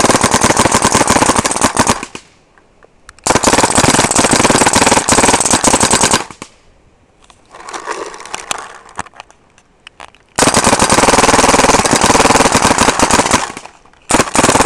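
Ion paintball marker with a Virtue board firing full-auto strings at 25 balls per second in auto-response mode. The shots come in five rapid strings of two to three seconds each, with short pauses between, and the middle string is quieter and more broken.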